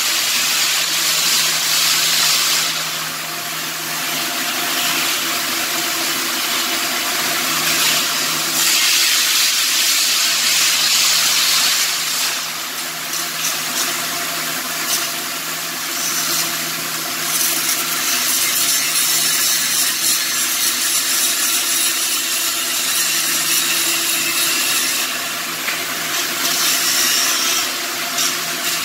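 Shielded metal arc (stick) welding: the electrode's arc crackling and hissing steadily, easing off briefly a few times, over a steady low hum.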